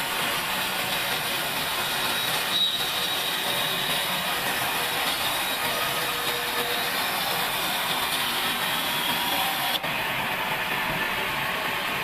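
Large vertical band saw ripping through an old pine beam: a steady, hissing cutting noise, with a faint high whine that joins about two and a half seconds in and fades near the end.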